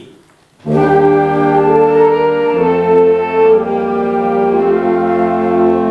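Youth wind orchestra of flutes and brass, including a tuba, entering together on a count-in about half a second in and playing long held chords. The chord changes about two seconds later and again near the end.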